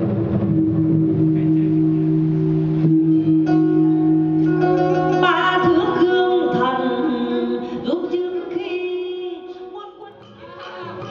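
Traditional Vietnamese water-puppet theatre music: long held notes, then singing over plucked strings with sliding, bending pitches, dipping briefly quieter about ten seconds in.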